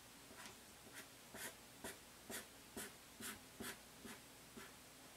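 Felt-tip marker scratching on paper as a curve is drawn: faint short strokes, about two a second.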